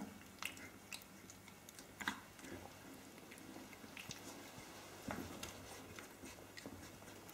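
Nineteen-day-old Australian Kelpie puppies play-fighting, with faint mouthing and chewing noises and scattered small clicks and scuffles, the sharpest about half a second and two seconds in.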